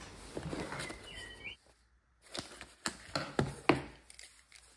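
Scissors and a small cardboard parcel handled on a wooden tabletop: scattered light knocks and clicks, the sharpest few about three to four seconds in.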